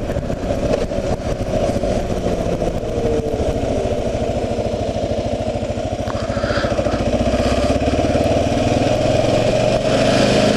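2009 Kawasaki KLR 650's single-cylinder engine running steadily while riding, getting slightly louder in the second half.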